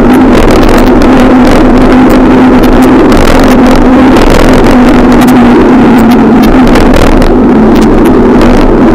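Loud, steady riding noise of a moving vehicle: an even hum with irregular clicks and rattles over it.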